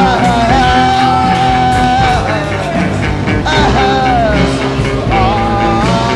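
Rock song: long held high notes, several in a row, each sliding into pitch or bending down at its end, over a steady full-band backing.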